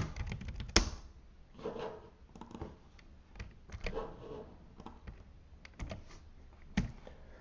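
Typing on a computer keyboard: irregular keystroke clicks, a few sharper strokes among lighter ones.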